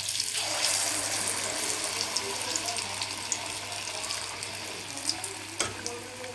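Ladlefuls of malpua batter frying in hot oil in a kadai: a loud sizzle with many small crackles that swells just after the start and then slowly eases off. A steady low hum runs underneath.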